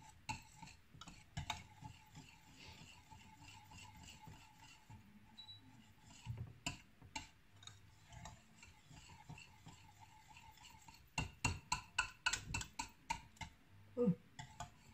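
A utensil clicking and tapping against the sides of a small stainless steel saucepan while pudding mixture is stirred, in loose runs of ticks that speed up to about four a second later on.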